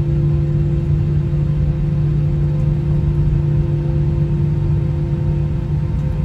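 Airliner cabin noise on the ground: a steady jet-engine rumble with a constant low hum that does not change.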